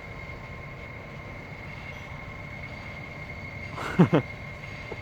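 Steady low outdoor rumble with a thin high steady tone. About four seconds in come two quick, loud, falling cries: a Boston terrier whining.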